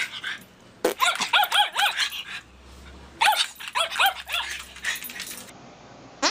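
Small dog barking in high-pitched yaps, several quick yaps in a row, in two runs with a short pause between.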